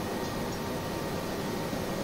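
Steady rushing of the electric fan blower forcing air into a coal forge fire.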